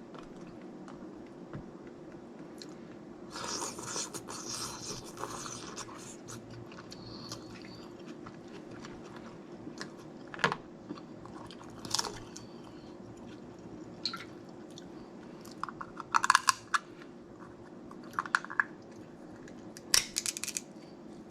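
Close-up eating of snow crab legs: chewing and crunching, with scattered sharp cracks of the shells and two quick clusters of cracks in the second half.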